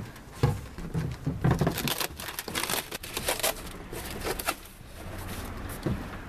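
Packing tape and plastic wrap being ripped off a cardboard box and the cardboard crinkling, in a run of irregular rips and rustles that ease off near the end.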